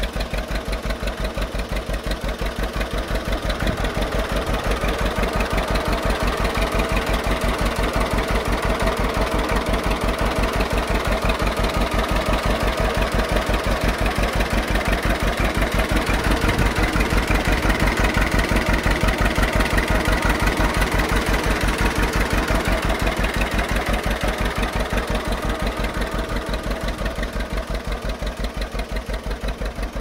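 John Deere 630 tractor's two-cylinder engine running steadily at idle, an even, regular beat of firing pulses.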